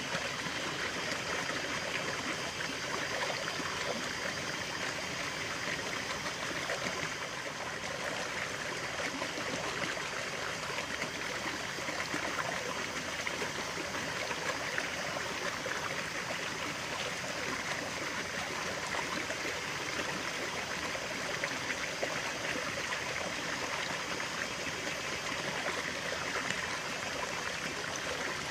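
Running water of a stream flowing and trickling, a steady, even rush with fine bubbling detail.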